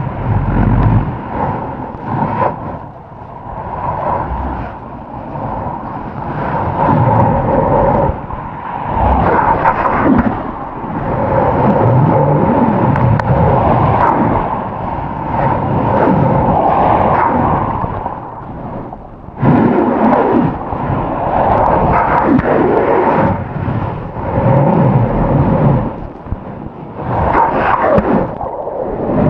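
Ocean surf and rushing water buffeting the camera microphone, a heavy rumble that rises and falls in surges.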